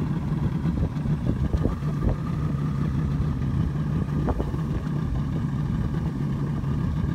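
Boat's outboard motor running steadily at low speed, a steady low hum with rumble underneath.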